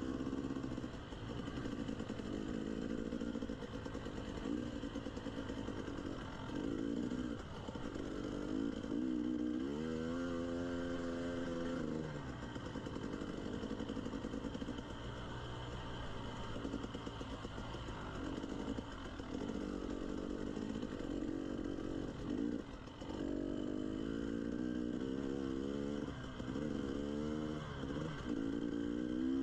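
Dirt bike engine running at low trail speed, its revs rising and falling with the throttle, with a pitch climb about ten seconds in and repeated rev swings near the end.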